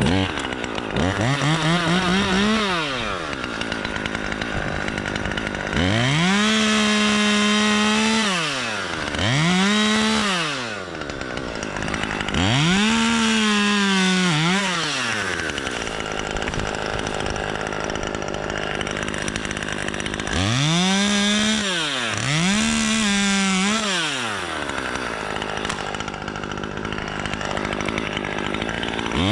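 Two-stroke chainsaw revved up to full throttle and let back down to idle about six times, each run lasting one to three seconds, idling in between.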